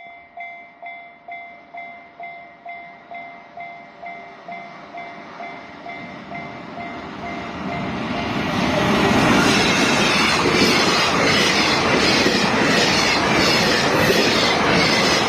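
A level crossing warning bell rings about twice a second. About eight seconds in, a freight train arrives and passes over the crossing, loud and steady with regular clacking of the wheels over the rail joints, and it drowns out the bell.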